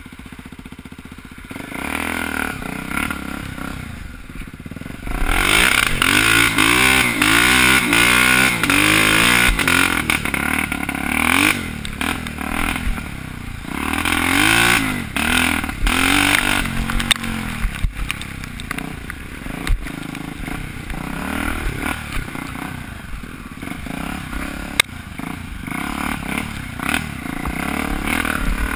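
Trail motorcycle engine revving up and down while riding a rough dirt track, its pitch rising and falling again and again. It is quieter for the first few seconds and loud from about five seconds in, with occasional sharp knocks.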